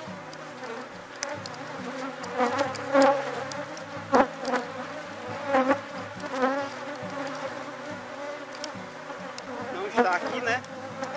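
Honeybees buzzing around an opened hive: a steady drone, with single bees flying close past and their buzz rising and falling in pitch. A sharp knock comes about four seconds in.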